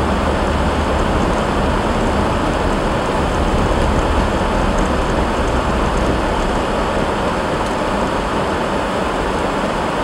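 Steady cabin noise of a car driving on a snow-covered road: tyres hissing over snow and slush with an engine and road rumble underneath. The low rumble eases about halfway through.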